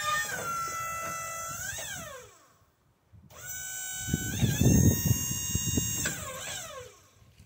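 Wood-Mizer LT35 sawmill's hydraulic pump whining in two bursts, the first about two seconds and the second about three and a half, each holding a steady pitch and then sweeping up and back down as it stops. Low knocks come during the second burst.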